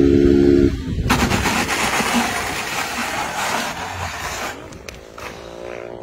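Motorcycle engine held at a steady high pitch cuts off under a second in. About a second in a loud harsh scrape begins as the back of the bike drags along the asphalt, throwing sparks, for about three and a half seconds before fading into scattered knocks.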